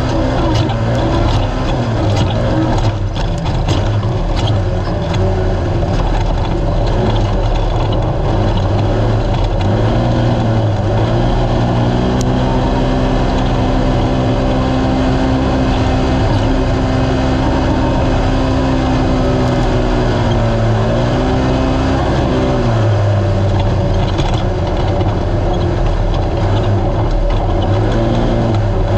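Naturally aspirated RZR side-by-side's engine running hard at high revs, its pitch held level for long stretches and dipping and rising briefly a few times. Sharp knocks and rattles come through in the first several seconds.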